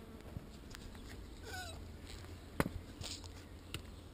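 Handheld action camera being handled and turned around: a sharp click a little past halfway and a few lighter knocks, over faint outdoor background with a short wavering chirp about a second and a half in.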